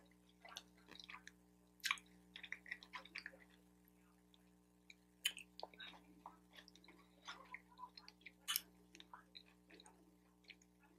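Close-miked chewing of a mouthful of pork fried rice: soft wet mouth clicks and smacks at irregular intervals, with a few sharper smacks, over a faint steady hum.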